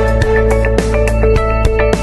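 Background music with a steady beat and plucked, guitar-like notes.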